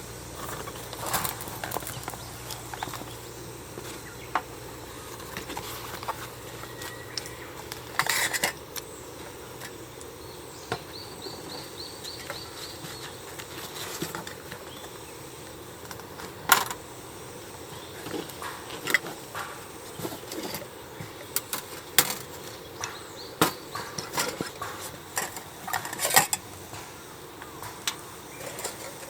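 Scattered clinks and knocks of camp cookware and utensils being handled, as in setting up to make coffee.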